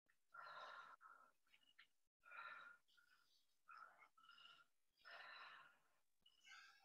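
Faint, heavy breathing from exercise, a breathy puff about once a second or so, in time with the dumbbell reps.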